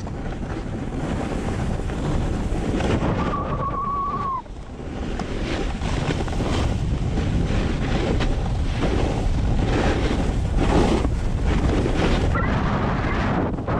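Wind buffeting the action camera's microphone while a snowboard slides and carves over groomed snow: a steady rough rushing hiss that drops briefly about four seconds in.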